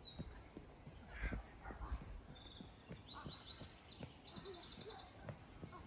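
Woodland songbirds singing: many short high chirps and phrases from several birds, with a quick trill of repeated notes near the end.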